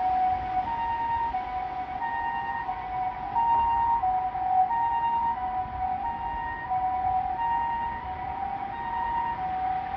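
Japanese ambulance two-tone electronic siren on the Kagoshima City Hospital neonatal doctor car (NICU car), sounding its emergency-run signal: a high tone and a lower tone take turns about every two-thirds of a second, over the low rush of road traffic.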